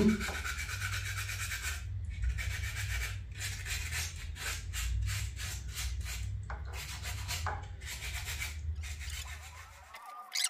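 Hand-scrubbing a freshly demoulded white cement and marble-dust planter: quick, raspy back-and-forth strokes, about three a second, over a steady low hum that stops near the end.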